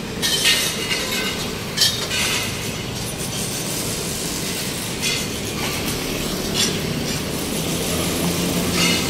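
Irregular metallic clanks and clinks from construction work, with steel pieces being handled, over a steady hum of street noise.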